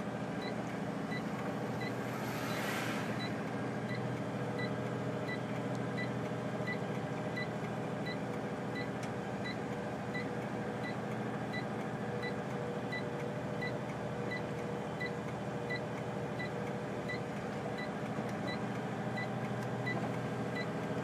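Truck's diesel engine running steadily in fourth gear, heard from inside the cab while descending a steep hill. A short, high electronic beep repeats about twice a second over the engine, and a brief hiss rises and fades about two seconds in.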